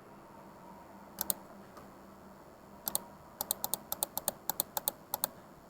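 Keys being tapped as a calculation is keyed in: a couple of single clicks, then a quick run of about a dozen key presses in the second half.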